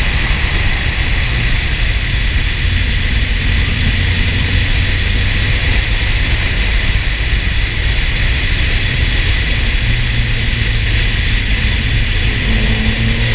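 Porsche 968's 3.0-litre four-cylinder engine running at speed, a low drone buried under a steady rush of wind and road noise on the microphone.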